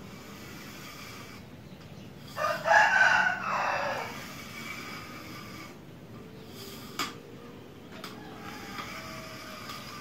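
A rooster crowing once, about two seconds in, the call falling away at its end. A single sharp click comes later.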